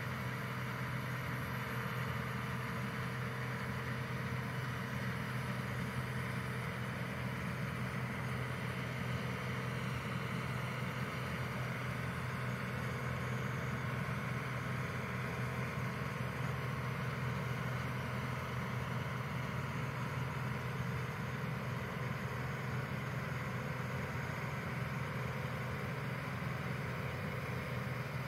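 Claas Dominator 58 combine harvester running steadily as it harvests: a constant diesel engine drone with a strong steady low hum.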